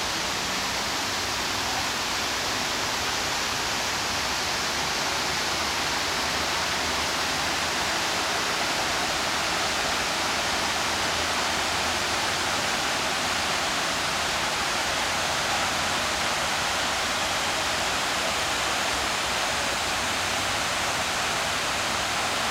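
Steady rush of falling water from fountain jets and a stepped cascade splashing into a pond.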